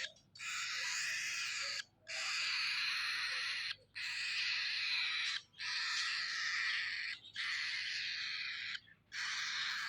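Baby cockatiel begging for food: long, harsh, raspy calls, one after another with short breaks between them, about six in all.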